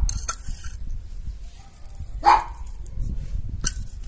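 A dog barks once about two seconds in, with a shorter, sharper bark near the end, over a low rumble.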